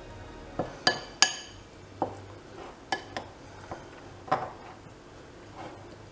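A spoon knocking and scraping against a glass mixing bowl while stirring a sticky, crumbly date-and-nut base. About nine irregular clinks; the loudest, about a second in, rings briefly.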